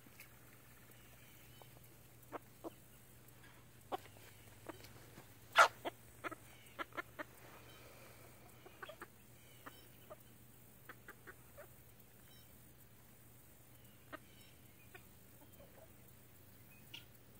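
Bantam chickens clucking in short, scattered calls, the loudest about five and a half seconds in.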